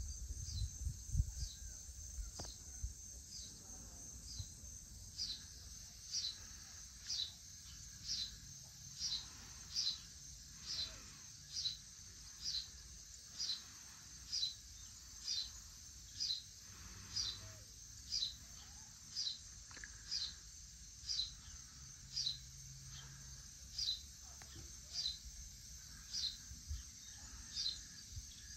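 A bird calls a short falling chirp about once a second, steadily, over a continuous high-pitched drone of evening insects such as crickets. There is some low rumbling in the first couple of seconds.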